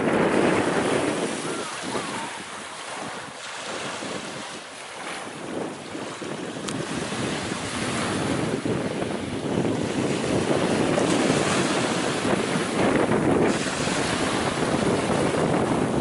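Waves breaking on a beach, a continuous rush of surf that eases off for a few seconds early on and swells again, with wind buffeting the microphone.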